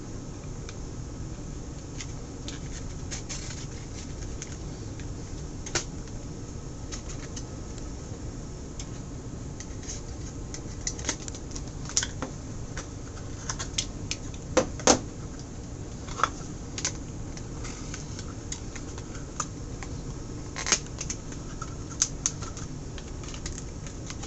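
Plastic clamshell packaging being handled and opened: scattered irregular clicks and crackles, with a couple of louder snaps about halfway through, over a steady low hum.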